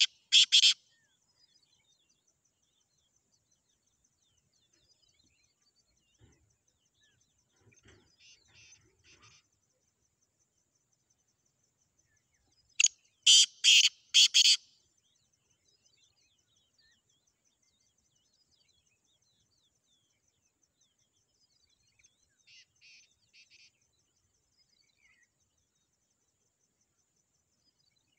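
Black francolins calling: one loud, close call of four or five harsh rasping notes about halfway through, and fainter, more distant calls of the same pattern about a third of the way in and again past three quarters. The birds are answering each other in a territorial calling match. The tail of another loud call sounds at the very start.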